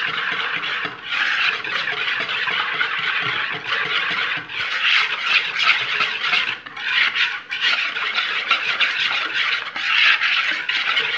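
A utensil stirring and scraping a wet cocoa mixture in a plastic mixing bowl by hand: a continuous, fast scraping with a few brief pauses.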